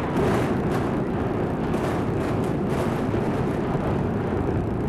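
Implosion of the Kingdome's concrete dome: a rapid sequence of demolition charges going off, heard as a dense, continuous rumbling crackle that starts suddenly, with sharper blasts standing out during the first three seconds.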